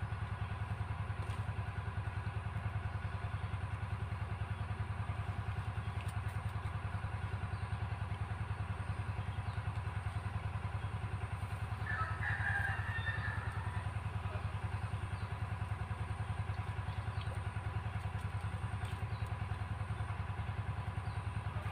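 Diesel engine of a rice-field irrigation pump running steadily, with an even, fast chugging pulse.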